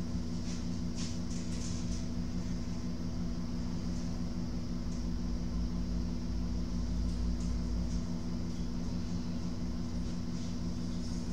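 Steady mechanical hum of workshop background noise, with several low steady tones and a few faint light ticks.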